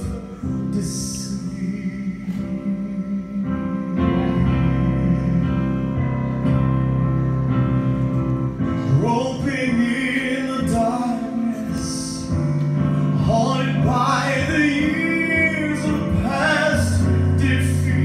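Live gospel music: the instrumental accompaniment of a slow gospel song, with guitar and held bass notes, between sung lines. A male voice comes in with sustained, wavering sung phrases about halfway through and again near the end.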